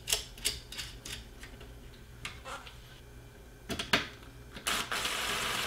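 A series of light clicks and taps from hands seating ribbon-cable connector latches and handling a TV's main circuit board, then a cordless drill-driver runs steadily from just before the end, driving a screw into the board.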